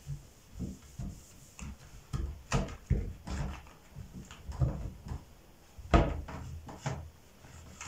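Irregular knocks, clunks and rustles of objects being handled and set down, the loudest knock about six seconds in.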